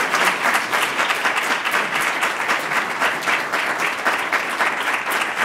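Audience applauding steadily, a dense patter of many hands clapping, welcoming a speaker to the lectern.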